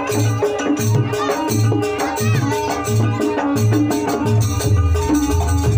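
Jaranan music accompanying the trance dance: a steady low drum beat about twice a second under rattling percussion and sustained gong-like tones, with a wavering high melody line on top.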